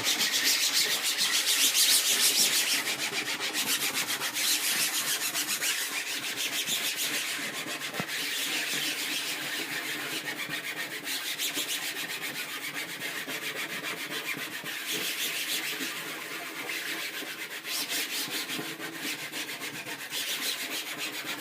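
The scrubby side of a sponge is scrubbed rapidly back and forth over the mesh of a screen-printing screen, working in Franmar Bean-e-doo to loosen the dried-on ink. It is a steady scrubbing of quick strokes, a little louder in the first couple of seconds, and stops at the very end.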